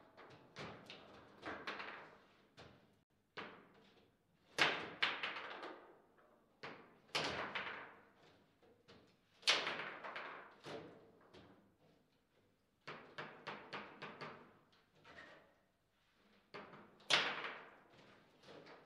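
Table football in play: sharp clacks and thuds of the ball struck by the figures and knocking against the table's walls, with the rods rattling, in irregular flurries and a few much louder hits.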